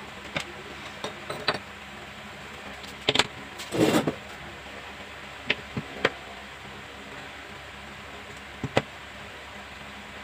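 Scattered sharp clicks and knocks over a steady hiss, with a longer clatter about three to four seconds in.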